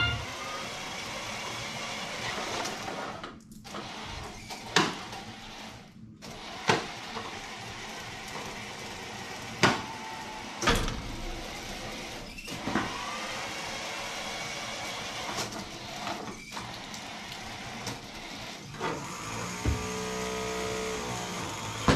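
FTC competition robot driving itself during the autonomous period: its drive motors whine steadily, with several sharp knocks spread through. Near the end a steadier hum with several pitches sets in as the ring-launcher flywheel spins up.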